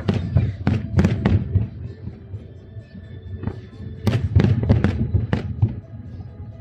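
Aerial fireworks going off in quick clusters of sharp bangs with a deep rumble beneath: a flurry in the first second and a half and another from about four seconds to five and a half, with music playing underneath.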